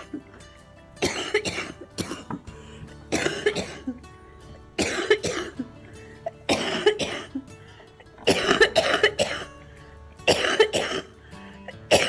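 A woman coughing hard in repeated fits: about six bouts of several quick coughs each, roughly two seconds apart, over faint background music.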